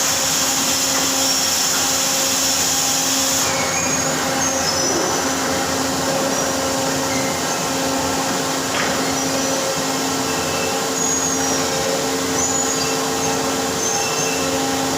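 Factory machinery running steadily with a constant hum, with a high hiss over it for the first three or so seconds.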